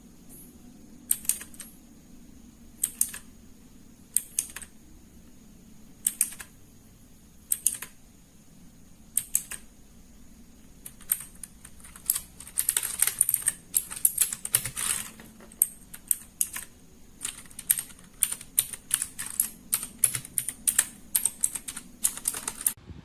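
RAKK DIWA mechanical keyboard with Outemu hot-swap switches being typed on. Single keystrokes come about every one and a half seconds at first, then fast continuous typing from about halfway in. It cuts off suddenly near the end.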